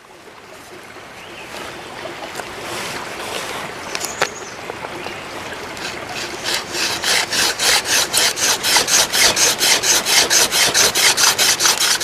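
Hand-drill friction fire: a mullein spindle spun between the palms, rubbing in a bigleaf maple hearth board. The grinding builds gradually, with a single sharp tick about four seconds in. From about six seconds it turns into loud, fast rhythmic rasping, about three to four strokes a second.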